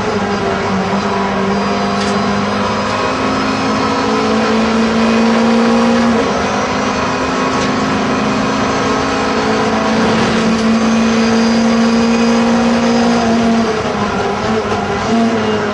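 Renault Clio Cup race car's four-cylinder engine running hard at high revs, heard from inside the cabin. The note breaks briefly about six seconds in, then drops near the end as the car lifts and the driver changes gear.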